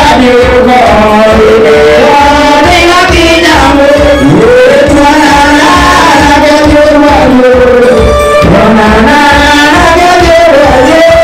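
A youth choir singing a church worship song through microphones and a PA, backed by electronic keyboard with a steady beat. It is loud.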